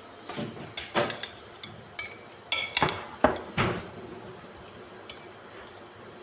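Kitchenware being handled: a run of about ten sharp clinks and knocks of metal and dishware, a few of them ringing briefly. They are bunched in the first four seconds, then settle to a quiet room hum.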